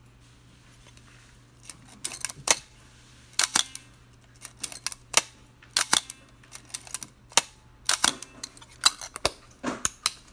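Minolta SR-1 mechanical 35 mm SLR being worked by hand: a series of sharp clicks and snaps from its shutter firing and film advance lever being wound, starting about two seconds in.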